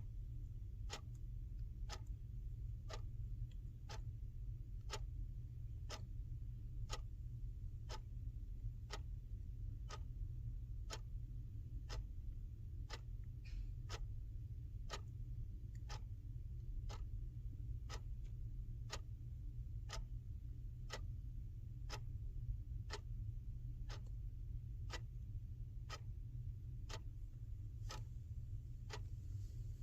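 Clock ticking steadily, about one tick a second, over a faint steady low hum.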